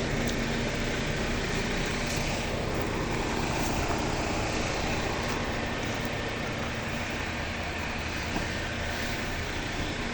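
Mercedes Actros concrete mixer truck's diesel engine running steadily.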